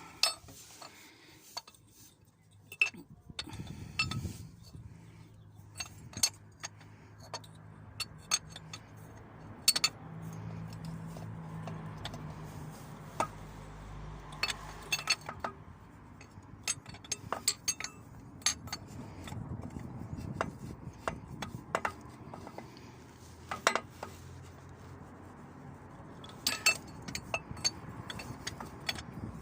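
Hand tools clinking and tapping against metal in irregular sharp clicks while the oil pressure switch is worked loose from the engine block, over a low steady hum in the background.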